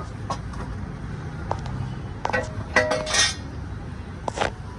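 Metal tools and engine parts clinking and knocking together: several sharp metallic strikes with brief ringing, the loudest cluster about three seconds in and another near the end, over a steady low background rumble.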